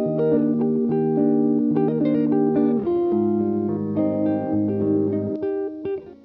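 Background music: plucked guitar notes over a bass line, the melody moving note by note.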